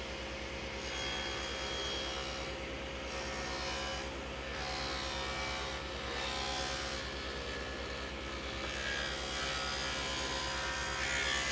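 Table saw running, its blade cutting a shallow groove lengthwise along a board fed against the fence. The cutting starts about a second in and stays fairly steady.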